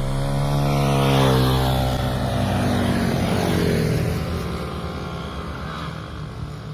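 Motor engine running loudly with a steady drone whose pitch dips between one and two seconds in, turning rougher and quieter after about four seconds.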